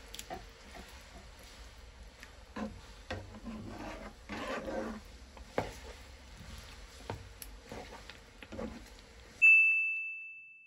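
A spatula stirring thick curry in a non-stick frying pan, with irregular scrapes and soft clicks. About nine seconds in, a loud electronic ding rings out and fades.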